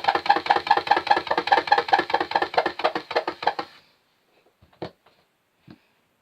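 Rapid, rhythmic scratching strokes of fingernails on wood, several a second, that stop abruptly a little over halfway through. Two separate sharp clicks follow near the end.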